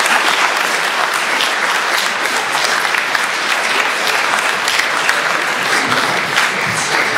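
A large seated audience applauding steadily in a function hall after a speech ends.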